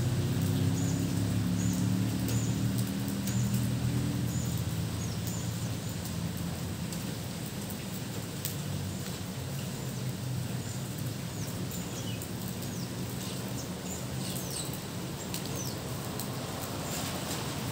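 Steady rain falling, with small birds giving short, high, falling chirps over and over. A low hum fades away over the first few seconds.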